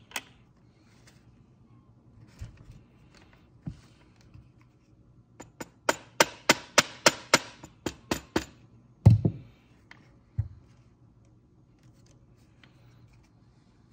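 Parts of a Benjamin 397S air rifle being handled and fitted back together: scattered knocks, then a quick run of about a dozen sharp taps, about four a second, starting about six seconds in, followed by one heavier thump.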